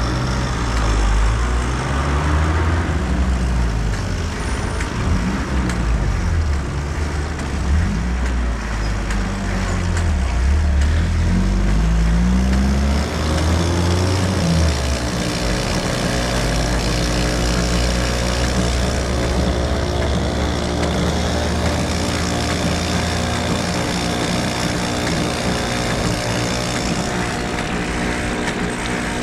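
Bicycle-driven cotton candy machine spinning: a continuous mechanical whir. For about the first dozen seconds its pitch rises and falls repeatedly with the pedalling speed, then it runs steadier.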